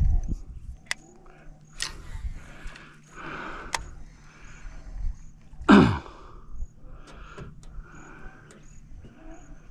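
Fishing rod and reel being worked on a lure retrieve: sharp clicks and soft intermittent whirring from the reel. Insects trill steadily in the background. About six seconds in comes one short, loud, falling groan-like sound.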